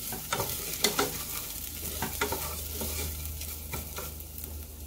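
Wooden spoon stirring soaked rice and garlic frying in oil in a stainless steel saucepan: a steady sizzle with the spoon scraping and clicking against the pot at irregular moments, over a low steady hum.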